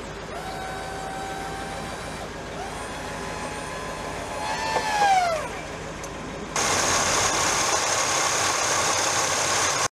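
1970 Cadillac De Ville's power convertible-top motor whining as the top moves, its pitch bending down and back about five seconds in. About six and a half seconds in, this switches abruptly to the steady noise of the car's 472 V8 running, heard close up in the engine bay, which cuts off suddenly near the end.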